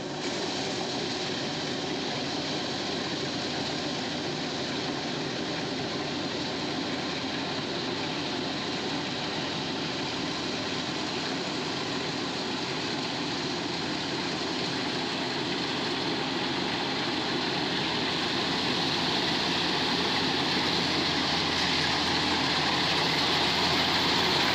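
Engine running steadily, growing gradually louder over the last ten seconds or so.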